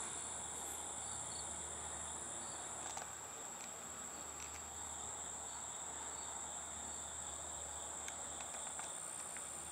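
Insects in summer weeds making a steady, faint, high-pitched drone that does not let up, over a faint low hum.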